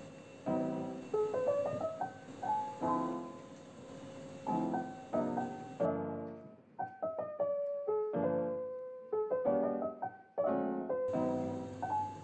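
Background piano music: a melody of struck notes and chords.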